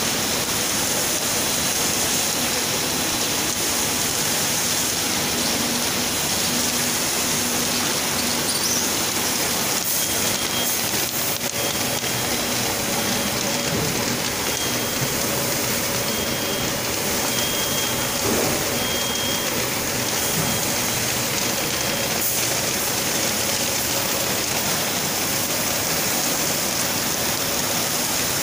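Automatic kettle-popcorn processing line running: a steady, even, rain-like noise of machinery and popcorn moving through it, with faint steady hums underneath.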